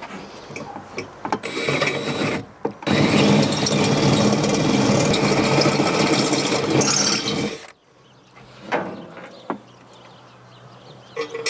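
Cordless drill running under load, boring a hole: a short burst, then a longer run of about five seconds that stops abruptly, followed by a few light knocks.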